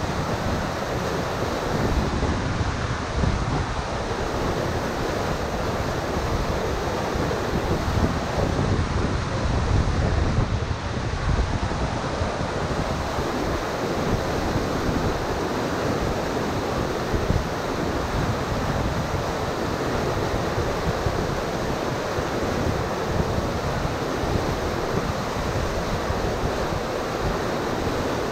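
Whitewater rapids rushing steadily over a rocky drop, with gusts of wind buffeting the microphone.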